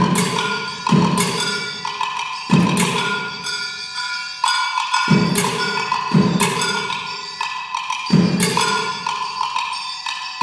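Solo percussion played on struck, ringing metal objects: a fast, steady stream of bright clanging strikes, with a low drum thump every second or two.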